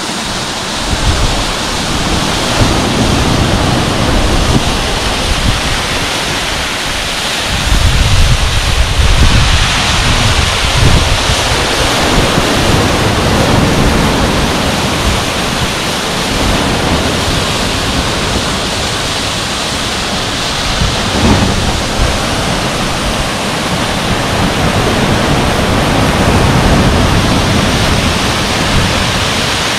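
River waterfall pouring over a rock ledge onto the beach, together with ocean surf washing in: a loud, steady rushing of water. Wind rumbles on the microphone underneath, strongest about a third of the way in.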